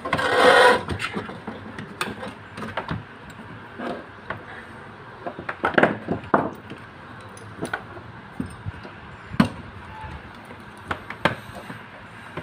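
Scattered clicks and knocks of hands handling the metal control box, wiring and capacitor of an opened window-type air conditioner, with a louder noise lasting under a second at the start.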